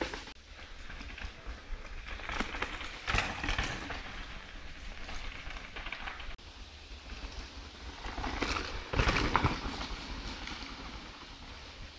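Downhill mountain bikes riding past on a dirt forest trail, heard as a noisy rumble over a steady low rumble on the microphone, swelling about three seconds in and again around nine seconds.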